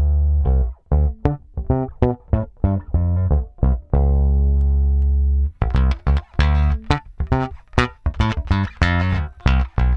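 Fender Jaguar Bass, made in Japan, played solo through its two Jazz Bass single-coil pickups: a run of short, quick notes with sharp attacks, a long held low note about four seconds in, then another burst of fast notes.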